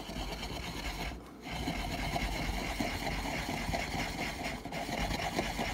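Wooden pestle grinding a dry seasoning rub of salt, pepper, thyme and garlic in a wooden mortar: a steady gritty rubbing and scraping, with a short pause about a second in.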